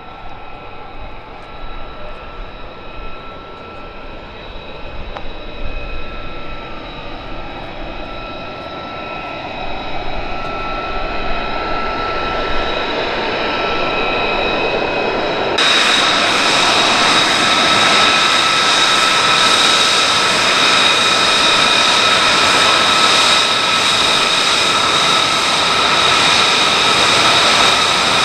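F-35A Lightning II's single Pratt & Whitney F135 turbofan at taxi power: a steady high whine over a rushing roar, growing louder as the jet comes closer. About halfway through, the sound jumps abruptly louder and fuller.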